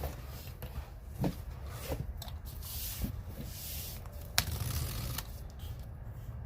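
Packaging being handled and opened by hand: rustling and scraping with a few sharp clicks, one louder click near the end.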